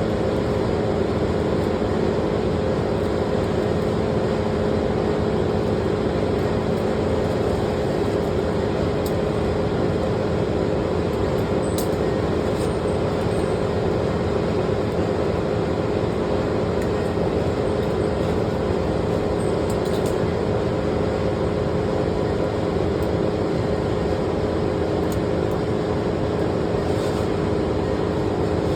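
A steady engine drone, running at an even pitch and level without change.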